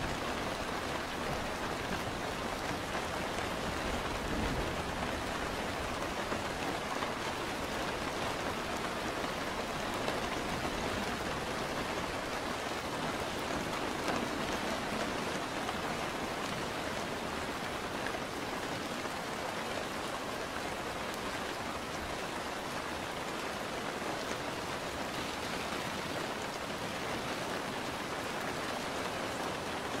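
Steady rain falling, an even hiss with no breaks or separate drops standing out.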